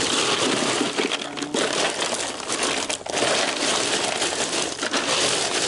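A hand rummaging through ice cubes packed around plastic drink bottles in a cooler: a continuous clattering crunch of cubes shifting and rubbing against each other, with two brief pauses.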